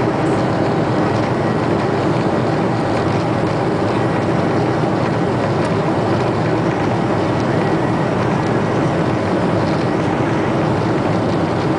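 Steady, even roar of an airliner's engines and airflow heard from inside the passenger cabin.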